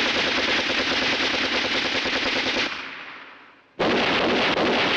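Automatic gunfire in two long, rapid bursts. The first lasts nearly three seconds and trails off. The second starts abruptly about a second later.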